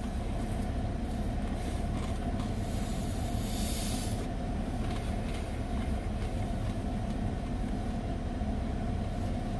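Steady low rumble of a car engine idling, heard from inside the cabin, with a brief hiss about two and a half seconds in.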